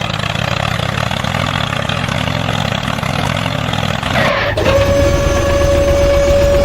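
A machine's motor or engine running steadily. About four and a half seconds in the sound changes abruptly to a steady high whine over a low rumble.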